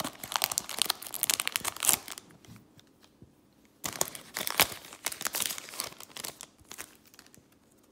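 Foil wrapper of a Panini Donruss baseball card pack crinkling and rustling as the cards are slid out of it. It comes in two spells: the first two seconds, and again from about four seconds in, dying down toward the end.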